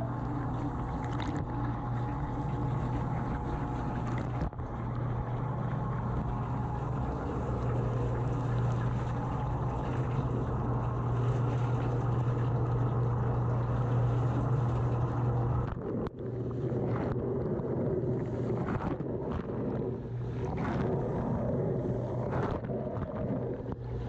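Running dishwasher heard from inside the tub: the wash pump motor gives a steady low hum under the hiss and splash of water jets striking the rack and the waterproof camera, muffled by the camera's waterproof housing. The sound dips briefly about sixteen seconds in.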